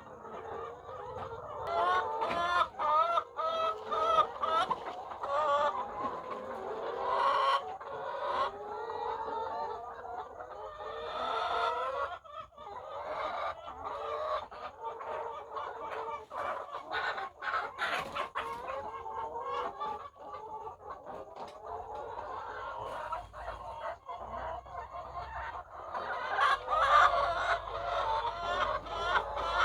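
A flock of layer hens clucking, many calls overlapping, with scattered sharp clicks and knocks; the clucking grows louder near the end.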